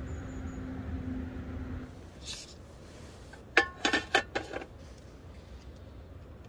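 Tableware clinking at a small table: four or five sharp knocks with a brief ring in quick succession, about halfway through. Before that, a low steady hum stops about two seconds in.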